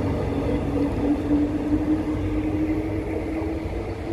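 Electric suburban train running, its motors giving a steady whine whose pitch rises slowly as it picks up speed, over a low rumble.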